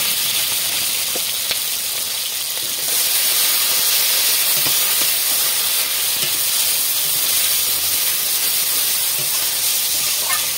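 Chopped tomato and green peas sizzling in hot oil in a metal kadai, a steady hiss that grows a little louder about three seconds in, while a metal spatula stirs them.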